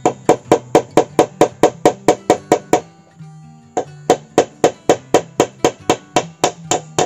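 Rapid, evenly spaced strikes of a hand tool, chopping or hammering, about four a second, with a short break near the middle, over background acoustic guitar music.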